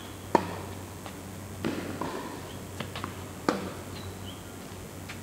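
Tennis rally on a hard court: a ball struck back and forth by rackets and bouncing, as a series of sharp pocks. The loudest comes about a third of a second in, another about three and a half seconds in, with softer hits and bounces between.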